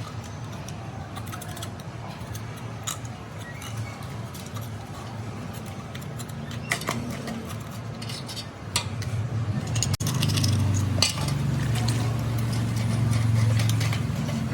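Scattered clinks and taps of metal parts and hand tools during hydraulic pump repair work, over a steady low hum that grows louder about ten seconds in.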